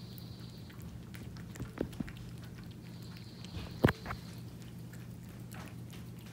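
Calico cat eating wet food from a tin: soft wet chewing and clicks, with a sharp knock a little before four seconds in, over a steady low hum.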